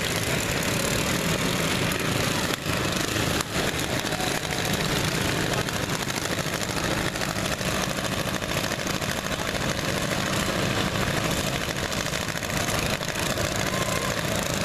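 Riding lawn mower engines idling together, a steady mechanical din.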